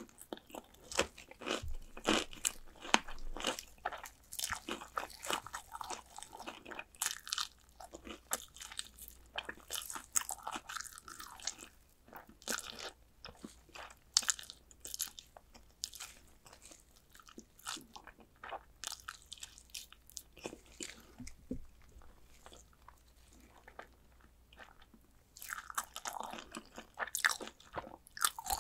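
Close-miked crunching bites and chewing of fried chicken drumsticks, the crisp coating crackling in quick, irregular crunches. The crunching thins out in the middle and picks up again near the end.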